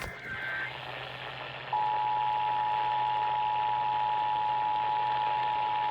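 Emergency Alert System tones heard over radio hiss and a steady low hum. The tail of a SAME data header's digital screech ends just after the start. About a second and a half later the steady two-tone EAS attention signal begins and holds, the sign that a new warning is about to be read.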